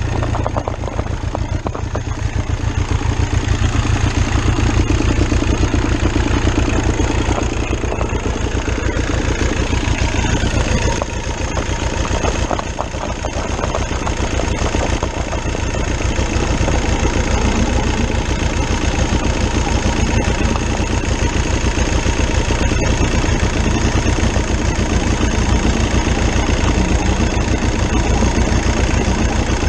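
VW Lupo 3L three-cylinder turbo diesel in a home-built diesel motorcycle, idling with a steady, even chugging beat that dips slightly about twelve seconds in.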